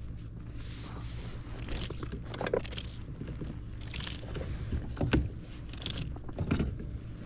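Water and handling sounds on a fishing kayak: a run of short swishes and splashes about every second, over a steady low hum.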